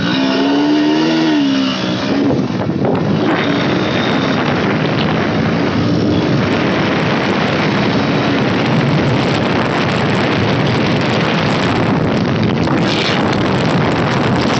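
Bajaj Pulsar NS 125 single-cylinder engine revving, its pitch rising and falling over the first two seconds as the motorcycle gets under way. After that the motorcycle rides at speed under a heavy, steady rush of wind on the microphone.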